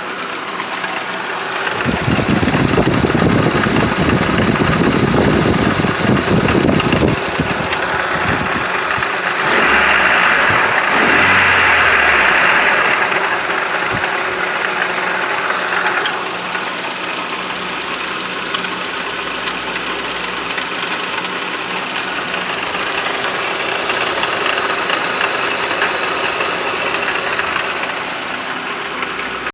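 Daewoo Nubira 1.6 engine running with a knock from the alternator bearing, which the owner takes for a failing alternator bearing. A dense, rapid low knocking stands out for the first several seconds, and a louder, higher noise rises over the engine in the middle before it settles back to a steady run.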